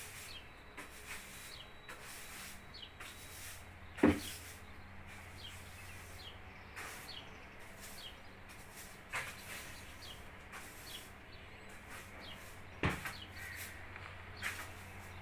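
Small birds chirping in short, repeated high calls, with two sharp knocks, the louder one about four seconds in and another near the end, over a faint steady hum.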